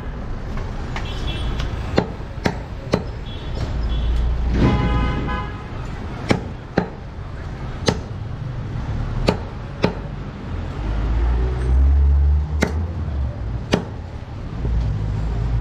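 A large butcher's knife chopping mutton on a wooden log block: about ten sharp knocks at irregular intervals, against a steady background of street traffic.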